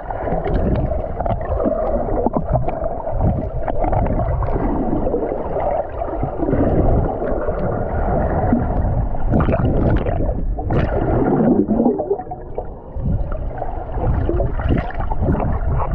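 Muffled sloshing and gurgling of sea water around a camera held partly underwater, with irregular surges and no clear higher tones.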